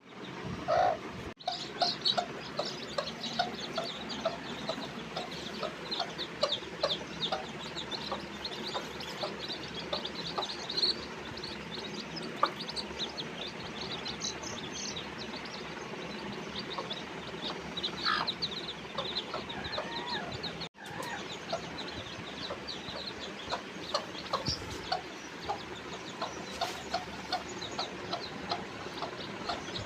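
Newly hatched chicks peeping constantly in short, high chirps, with a broody hen clucking now and then.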